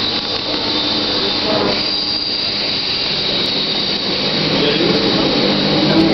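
Electric commuter train pulling into the platform: a steady high squeal over continuous rolling rail noise. A whining tone comes in near the end as it gets a little louder.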